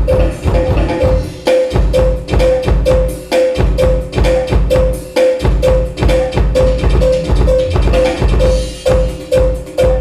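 Loud music with a steady beat: heavy bass pulses under a short repeated tone, about three notes a second.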